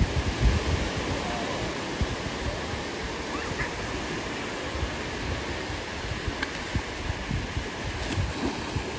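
Sea surf breaking and washing up on a sandy beach, a steady hiss of water, with irregular low rumbles of wind on the microphone.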